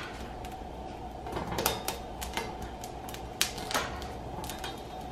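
Poblano chiles roasting on a hot metal comal while being turned by hand: scattered, irregular sharp clicks and crackles of the chiles against the griddle and their blistering skins, over a steady background hiss.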